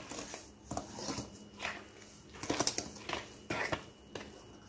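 Very thick, sticky oatmeal cookie dough being stirred by hand with a utensil in a stainless steel bowl: a series of short, uneven stirring and scraping strokes, about two a second.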